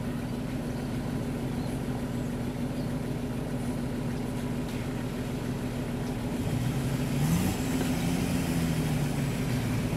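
Off-road 4x4 engines running at low revs in a steady hum. One of them, a Nissan Patrol crawling through a muddy stream crossing, revs up briefly about seven seconds in.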